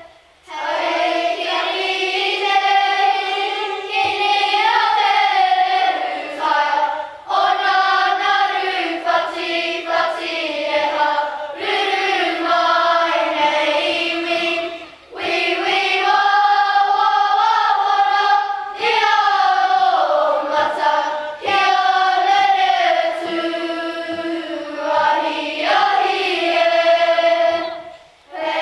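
A children's kapa haka group singing a Māori waiata together, in long sung phrases with brief pauses between them.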